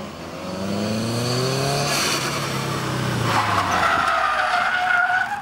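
Rally car's engine revving, rising in pitch through the first two seconds, then tyres squealing in a steady high tone from just past halfway as the car drifts sideways close by.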